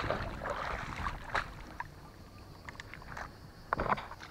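Shallow sea water splashing and sloshing as a small mullet is brought in and scooped into a landing net, with a few sharp knocks and clicks near the end.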